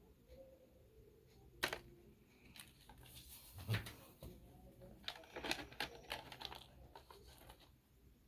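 Close handling noise: a sharp click about a second and a half in, then scattered clicking and rustling as things are handled, likely the packaging and parts of the unboxed shaver.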